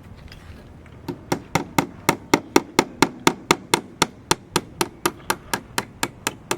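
Hammer blows in a steady, even rhythm of about four strikes a second, starting about a second in.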